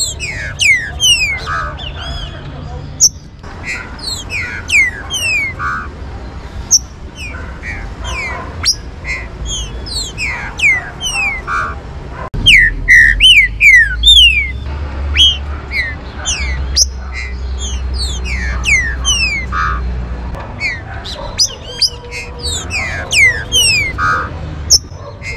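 Songbirds calling: many quick descending chirps overlapping one another, with short buzzy notes between them. Underneath is a low steady rumble, which grows louder for several seconds from about halfway.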